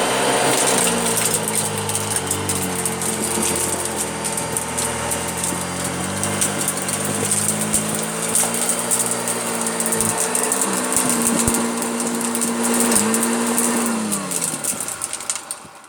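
Hoover Junior upright vacuum cleaner running on carpet, its motor pitch shifting slightly as it works, with debris such as dog biscuit rattling through it. Near the end it is switched off and the motor spins down to a stop.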